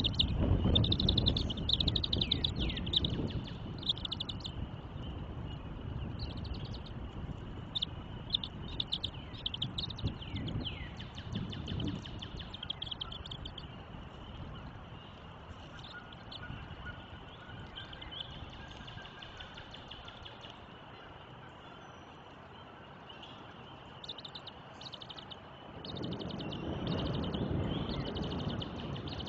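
Birds chirping over a low background rumble, with a few falling calls in the first dozen seconds. A low thunder rumble is strong at the start, fades away, and swells again near the end as the storm approaches.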